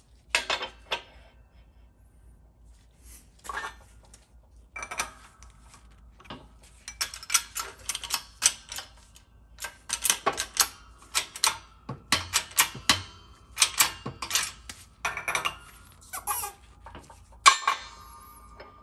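Metal clicks and clinks from a bushing driver, a transmission gear and a shop press as a bushing is pressed into the gear. The clinks are sparse at first, then come several a second, and a sharp clank near the end leaves a brief ringing.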